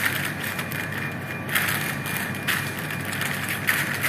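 A paper sheet crinkling and rustling as it is rolled around a filled roll and pressed down by hand, in short bursts about once a second.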